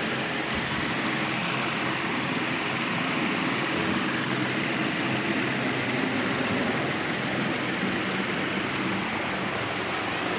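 Steady rushing air noise with a faint low hum, from a running electric fan.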